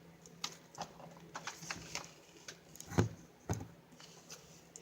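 Fingers poking and squishing slime, making a scatter of small crackling clicks and pops, with two louder squelchy pops about three seconds in.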